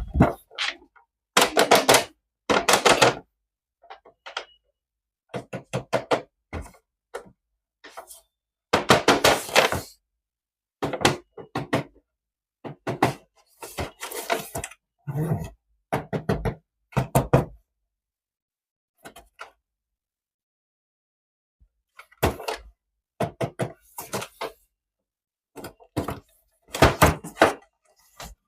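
Irregular clusters of knocks and clatter from handling toys and their packaging, with silent gaps between them.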